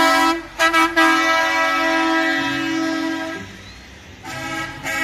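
Semi-trailer truck's horn sounding in long, steady blasts: one held blast with two brief breaks in the first second, ending a little past the middle, then, after a quieter second, another blast near the end.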